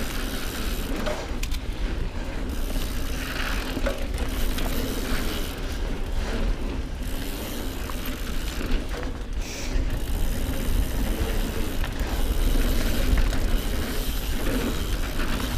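Mountain bike rolling fast along a dirt singletrack: a continuous rumble of tyres on the trail and wind on the bike-mounted microphone, with the clicking and rattling of the bike's mechanism over bumps. The rumble grows a little louder near the end.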